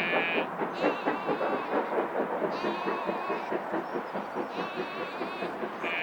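Sheep bleating repeatedly, wavering calls about a second long, over the steady rattle of a train rolling along the line.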